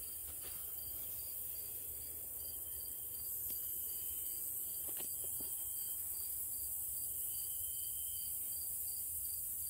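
Faint steady background noise, a low rumble under a high hiss, with a few soft clicks about five seconds in.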